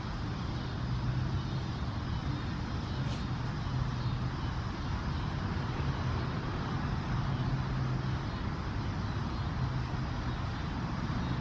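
Steady outdoor traffic noise: an even hiss with a low engine-like hum that comes and goes.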